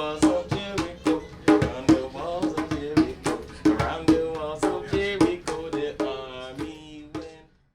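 Music of hand drums struck in a quick, uneven rhythm with a voice carrying a tune over them, fading out and stopping near the end.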